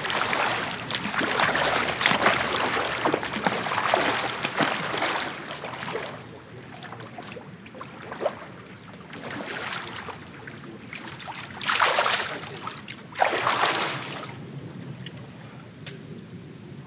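Pool water splashing and churning under a swimmer's strokes, heavy and continuous for about six seconds, then two louder splashes about twelve and thirteen and a half seconds in before the water settles to quieter lapping.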